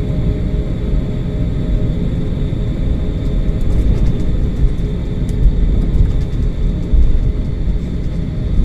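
Airliner's jet engines and airframe during takeoff: a steady low rumble with a few faint clicks in the middle.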